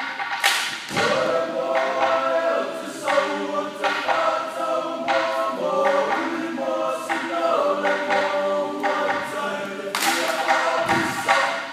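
A group of male voices singing a held, choir-like song in harmony, with a few sharp hand claps cutting in.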